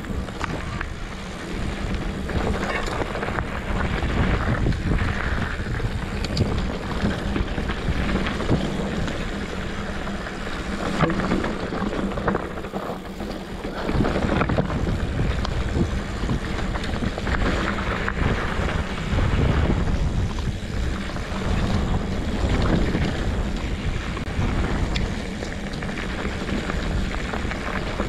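Wind buffeting the microphone of a camera on a moving rider, over a steady low rumble of tyres on a rough, rutted dirt trail. The level swells and eases as the ride goes on.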